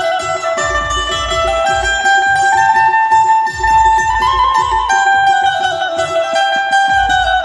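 Amplified Indian keyed banjo (bulbul tarang type) playing a bright plucked melody, its notes stepping up and down as the keys are pressed. A regular low drum beat sounds underneath.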